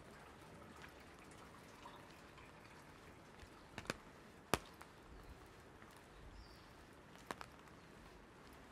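Light rain falling as a faint, steady hiss, with a few large drops striking an umbrella as sharp ticks: a quick pair a little before the middle, the loudest single tick just after it, and another pair near the end.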